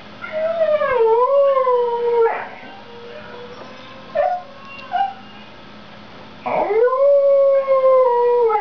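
Siberian husky howling. A long howl wavers and falls in pitch, two short calls follow, then a second long howl swoops up and is held while slowly sinking.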